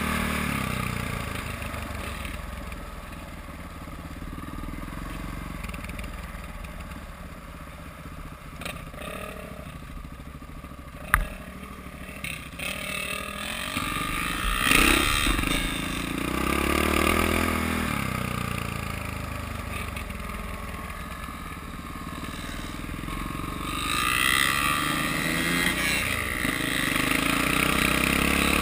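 Dirt bike engine running as the bike is ridden along a trail, its revs climbing and falling several times and loudest in the second half. A single sharp knock comes about eleven seconds in.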